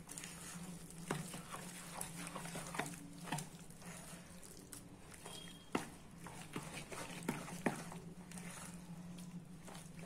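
Steel spoon stirring a thick, wet mix of soaked poha, rice rava and curd in a plastic bowl: irregular scrapes and light knocks of the spoon against the bowl, with soft squelches of the mixture.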